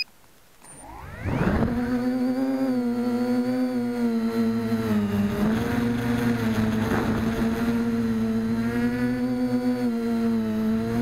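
Mini foam tricopter's electric motors and propellers spinning up from quiet with a rising whine about a second in, then running as a steady pitched drone that wavers slightly with throttle in flight, heard from on board.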